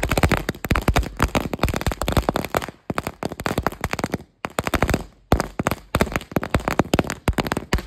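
A string of firecrackers (a ladi) going off in a rapid, irregular chain of sharp cracks, with a couple of brief pauses partway through.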